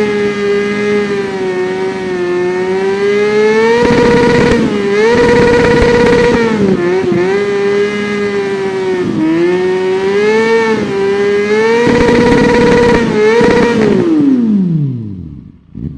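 Kawasaki Ninja 400's parallel-twin engine running loud at high revs, its pitch held high with repeated short dips and climbs back up. About two seconds before the end, the revs fall away steadily and the sound fades.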